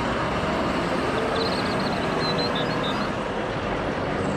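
Heavy recovery tow truck's diesel engine running steadily on a street, with the even rumble of traffic around it. A few faint high chirps come between about one and a half and two and a half seconds in.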